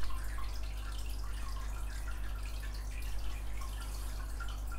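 Quiet room tone: a steady low hum with faint, scattered small ticks.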